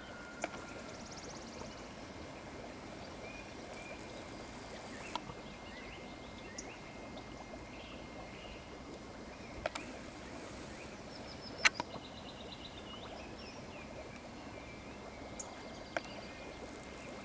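Steady outdoor background noise by a duck pond, like running water, with scattered high chirps and short trills and a few sharp clicks, the loudest about two-thirds of the way in. The swimming ducks make no clear calls.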